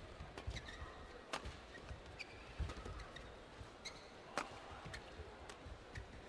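Badminton rackets striking a shuttlecock in a fast doubles rally: about a dozen sharp cracks, some less than half a second apart. Court shoes squeak briefly and feet thud on the court mat between hits, over a low arena murmur.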